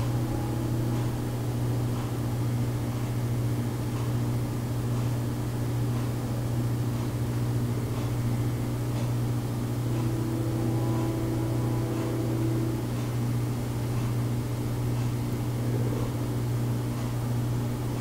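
A steady low mechanical hum, with a fainter steady drone above it, like a fan or small motor running.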